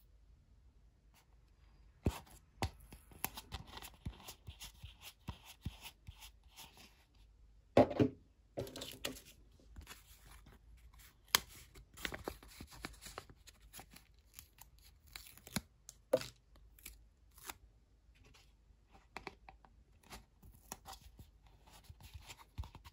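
Stickers being peeled from a paper sticker sheet and the sheet handled, in a run of irregular crackling rustles and small sharp clicks. The loudest crackle comes about eight seconds in.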